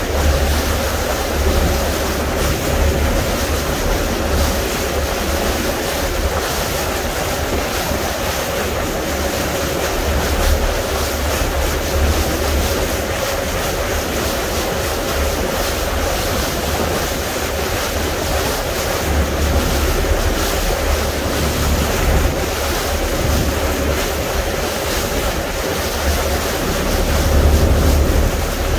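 Wind buffeting the microphone aboard a small fishing boat under way, over the wash of water and a steady engine hum.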